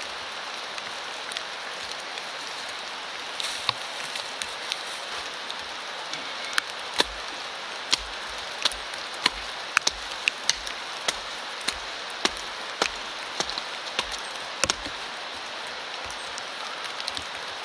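A compact folding shovel chopping into the turf and soil of the forest floor, a run of sharp strikes about two a second from about six seconds in to about fifteen seconds, over a steady hiss of rain.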